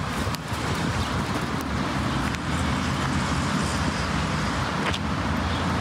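Steady hum of road traffic, with low engine drone.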